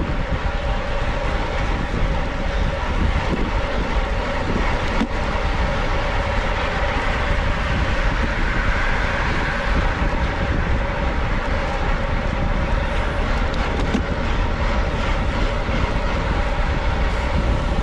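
Steady wind noise buffeting the microphone of a camera carried on a road bicycle at race speed, over a low road rumble and a steady mechanical hum; a single faint click about five seconds in.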